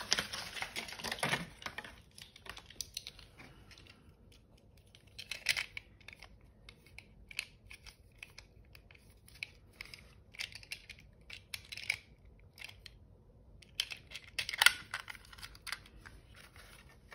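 Tape-runner adhesive dispenser rolled across card stock in two short rasping strokes, about five and fourteen seconds in, with small plastic clicks and paper handling sounds between.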